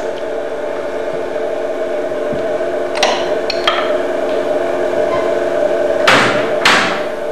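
Steady machine hum from laboratory test equipment. About three seconds in come a few light knocks as the glass test cell of a chewing gum tester is lifted off its metal jaw, and near the end there are two short, loud rushing noises.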